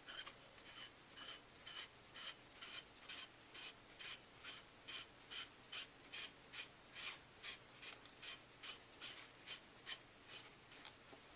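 Paintball marker barrel being screwed into the marker by hand: a faint, regular rasp of metal threads, about three strokes a second, that stops near the end once the barrel is fully seated.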